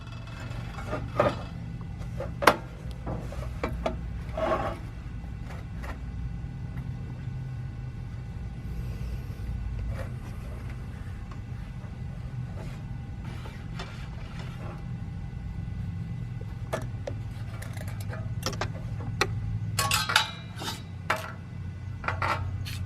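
A steady electrical hum runs throughout, with scattered clicks and light clinks of metal parts and tools being handled, several of them bunched together near the end.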